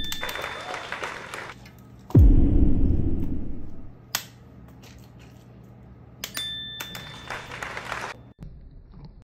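Sound effects added in editing. A high ding rings at the start and again about six seconds in, each followed by a hissy sparkle. About two seconds in comes a deep boom that drops quickly in pitch and slowly fades.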